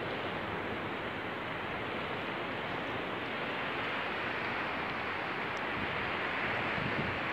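Steady rush of sea surf washing along a sandy shore.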